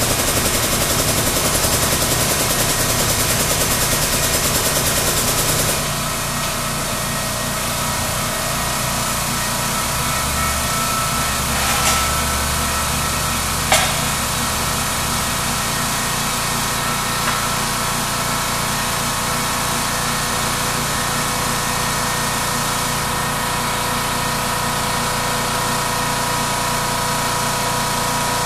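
An air compressor running steadily while it drives an 8-ton air-over-hydraulic ram jack, extending the ram with no load on it. A harsher, higher rattling layer drops out about six seconds in, leaving a steady motor hum, and there is a light click about fourteen seconds in.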